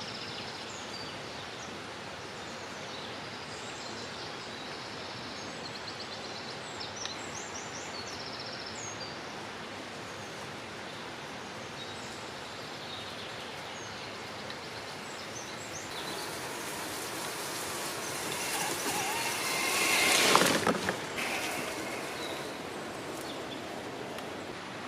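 Outdoor ambience: a steady hiss with birds chirping now and then in the first half. About two-thirds of the way in, a rushing sound swells up, sweeps in pitch, peaks sharply and fades within a few seconds, like something passing close.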